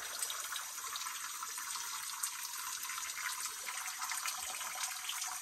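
Small creek running: a steady, even hiss of flowing water, mostly high in pitch with little low end.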